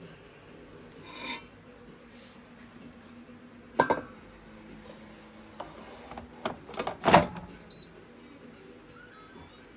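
Plastic basket of an Orbegozo air fryer handled and slid into the machine: a scrape about a second in, a clatter about four seconds in, then a run of clicks ending in a loud clunk as the basket latches home. A short high beep follows from the appliance near the end.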